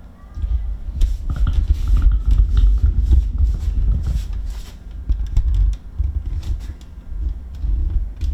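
Low thumps and rustling, scraping clicks close to the microphone, coming and going in uneven spells, as of handling and movement right by the recording device.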